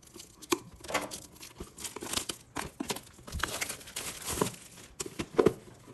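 Plastic shrink wrap on a cardboard trading-card box being cut with scissors, then torn and crinkled off, in irregular crackles and sharp clicks, loudest near the end.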